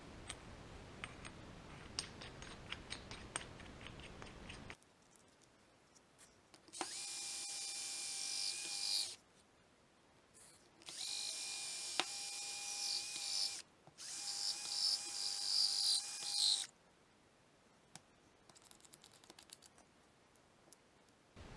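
Cordless drill spinning a seat-dressing tool in a hydraulic port of a power steering valve in three runs of two to three seconds each, a steady whine with a grinding hiss. It is truing a mashed port seat into a continuous honed ring for the cone-shaped hose fitting to seal on. Light clicks of parts being handled come before the runs.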